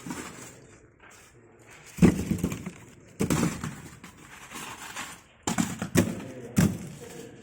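About five sudden knocks and bangs, unevenly spaced, the loudest about two seconds in, with quieter stretches between.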